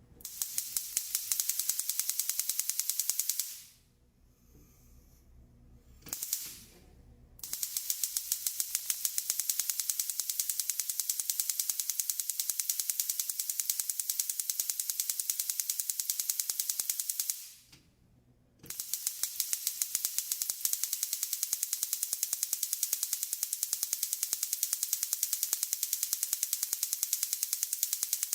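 Gas stove's electric spark igniter clicking rapidly and evenly in long runs. The clicking pauses twice, once for a couple of seconds a few seconds in and once for about a second past the middle, then starts again.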